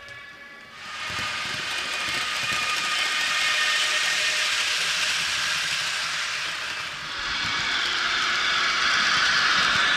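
H0-scale model freight train of hopper wagons rolling past close by: a steady rushing rumble of metal wheels on the model track that rises about a second in, dips briefly, then swells again near the end. A faint steady whine runs underneath.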